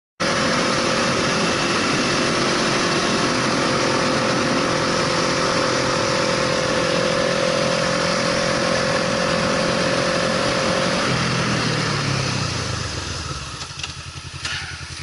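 A vehicle cruising at about 66 km/h with steady engine and road noise. About eleven seconds in the engine note falls and the noise drops away as it slows down.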